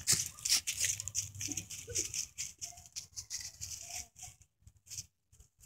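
Dry fallen leaves and brush crunching and rustling underfoot in irregular crackles, as a dog pushes a large ball into the undergrowth; the crunching thins to a few separate crackles about four seconds in.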